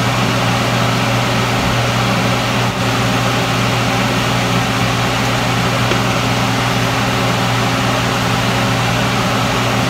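Steady low hum of a running electric motor, even in level throughout, with one faint click about three seconds in.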